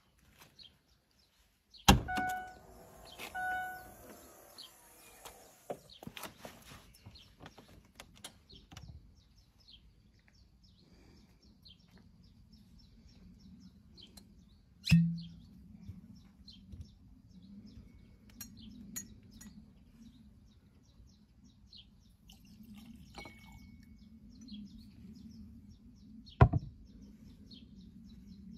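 A click and two short electronic beeps about a second and a half apart as the car's power tailgate opens, then birds chirping throughout. About halfway there is a dull thud, and near the end a sharp knock and small ringing clinks of glassware.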